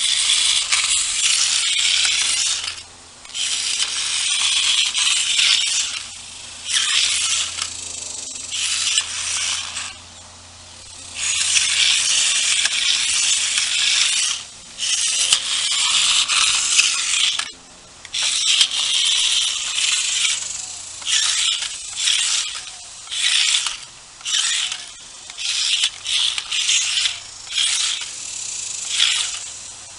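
Toy RC robot car's small electric drive motors and plastic wheels whirring and rattling in repeated bursts, some under a second and some several seconds long, with short pauses between as it is driven by remote control.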